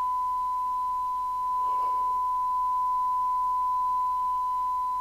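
Steady single-pitch 1 kHz test tone from the CB receiver's audio output: the signal generator's 1 kHz modulation demodulated by the radio, the reference tone for SINAD sensitivity measurement during alignment.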